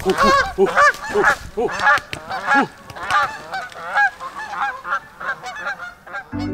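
A flock of Canada geese honking in a rapid, overlapping run of calls. The calls are loudest in the first half and grow fainter and sparser toward the end.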